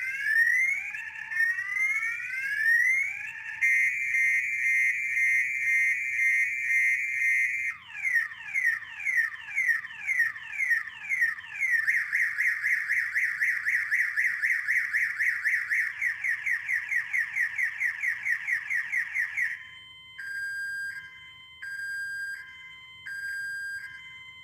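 Multi-tone electronic car alarm siren running through its cycle. It opens with repeated rising whoops, changes to a steady trill about three and a half seconds in, then a run of falling chirps, then a long fast warble, and near the end slow alternating high and low beeps.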